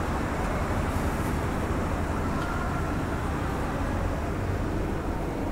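Glacier Express coaches rolling slowly along the platform: a steady low rumble.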